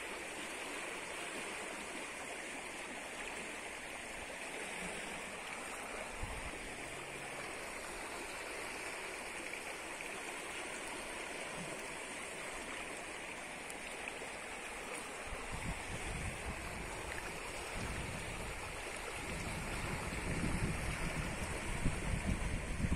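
Shallow stream water running over a stony bed, a steady rushing hiss. From about two-thirds of the way through, gusts of wind buffet the microphone.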